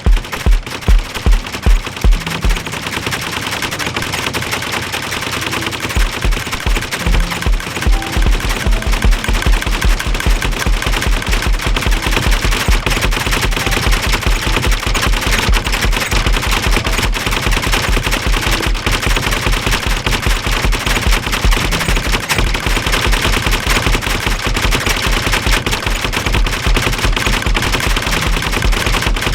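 Homemade noise machine rattling rapidly and without a break, a machine-gun-like clatter over a regular low thumping.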